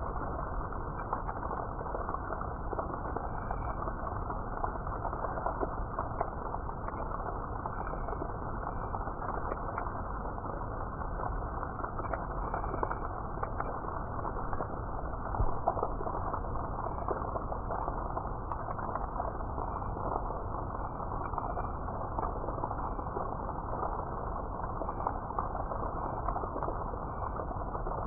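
Steady rain falling on leaves: an even hiss dotted with many small drop hits.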